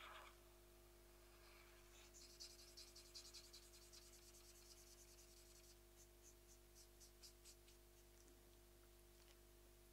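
Faint sound of a felt-tip marker rubbing on paper as an area is coloured in. Quick back-and-forth strokes start about two seconds in, then slow to a few separate strokes and stop near the end.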